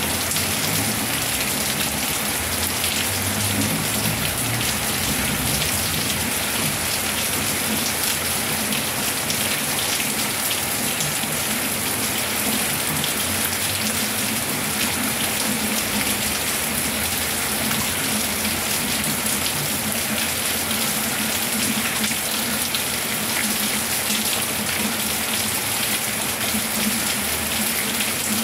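Steady rain falling, an even hiss made of many small drop impacts that does not let up.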